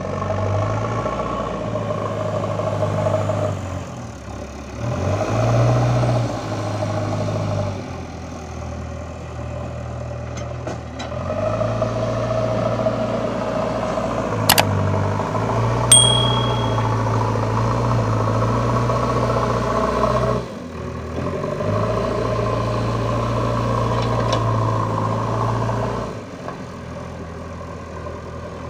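JCB 3DX backhoe loader's diesel engine working, its note rising and falling several times as it takes and eases off load. About halfway through there are two sharp knocks, the second ringing briefly.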